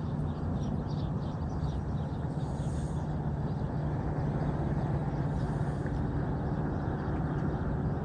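Distant approaching Norfolk Southern freight train with diesel locomotives leading: a steady low rumble with a constant low drone, slowly growing a little louder.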